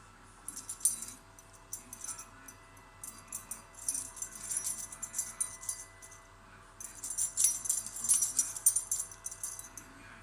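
Three bursts of high metallic jingling and jangling: the first brief, about half a second in, then longer runs through the middle and near the end.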